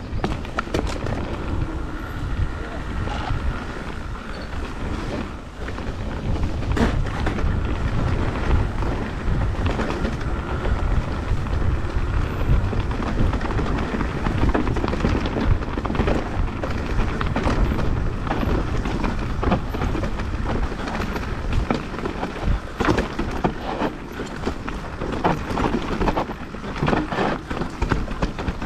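Mountain bike riding down a rough trail: wind rushing over the microphone and the bike rattling and clattering over the ground, with many sharp knocks from bumps.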